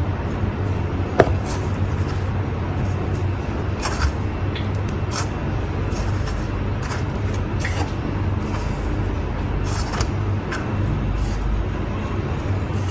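A steady low mechanical hum and rumble, with a few light clicks scattered through it.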